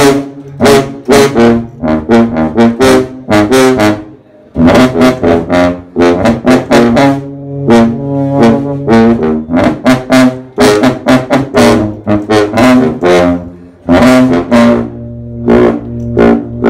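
Two sousaphones playing a loud, rhythmic fanfare of short, detached notes in the low brass register, with a brief break a little after four seconds in.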